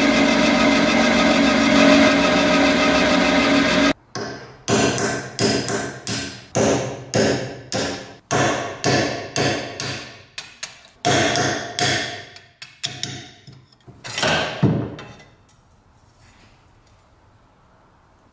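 A power tool running steadily, cutting off about four seconds in, then a hammer striking metal some twenty times at about two blows a second, each blow ringing briefly.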